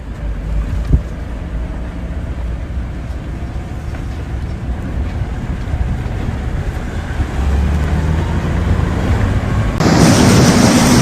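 Wind buffeting the microphone as a low rumble, with a single thump about a second in. Near the end the sound cuts abruptly to a much louder steady hiss of a storm downpour.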